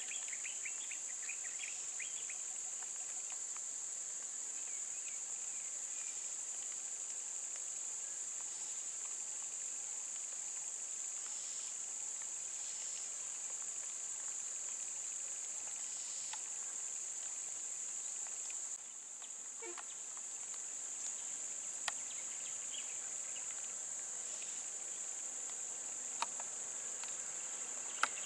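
A steady, high-pitched drone of insects, with a few faint chirps in the first two seconds. The drone dips briefly a little past halfway, and a few sharp clicks come near the end.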